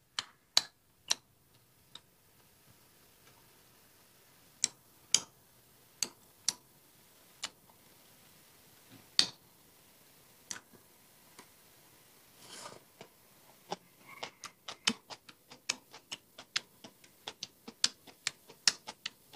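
Close-up eating sounds: sharp, isolated mouth clicks and smacks as a mouthful of pepperomia-and-shrimp salad is chewed. They are sparse at first and come quicker and closer together in the second half.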